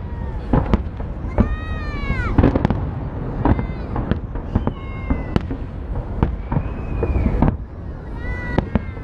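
Fireworks salute going off in a string of sharp bangs and cracks, with several high-pitched, rising-and-falling squeals or cries over it.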